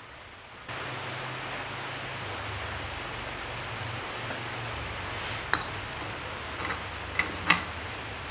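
Steady hiss with a low hum underneath, and a few light metallic clicks in the last three seconds as small parts are set onto the Honda Super Cub C90 engine's aluminium crankcase.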